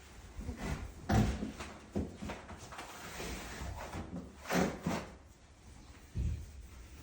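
A handful of separate knocks and clunks with a brief scrape in between: the handling noise of a refrigerator or washing machine being prepared and moved out. The loudest knocks come about a second in and about four and a half seconds in.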